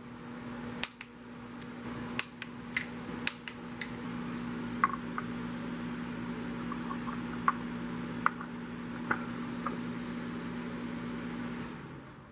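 Scattered sharp clicks and clinks of metal engine parts and tools being handled during an engine rebuild, over a steady machine hum that fades in over the first few seconds and stops shortly before the end.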